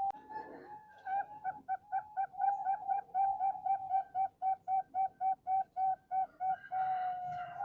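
Male zebra dove (perkutut) singing: a fast run of short cooing notes, about five a second, followed by a longer drawn-out note near the end.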